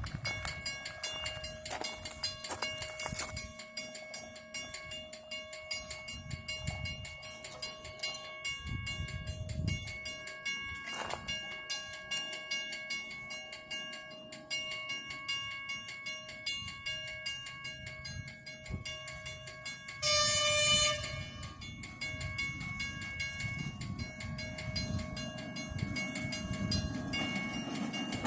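Puffing Billy narrow-gauge steam train running, with low rumbling and a steady high-pitched ringing tone. About twenty seconds in the locomotive's steam whistle gives one short, loud blast.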